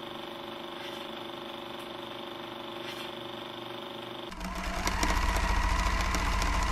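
Old film projector running: a steady mechanical whir with a fast, fine clatter. About four seconds in, a louder, deeper rumble with hiss takes over.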